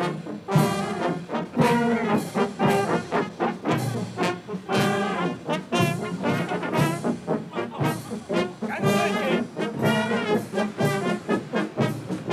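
Brass band of trumpets and tubas playing a tune with a steady beat.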